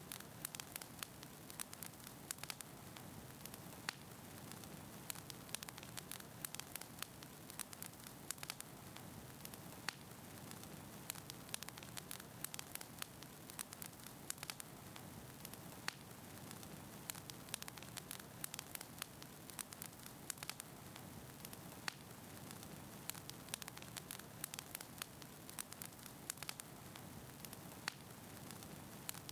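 Faint steady static hiss and low hum, with frequent irregular crackling clicks scattered throughout.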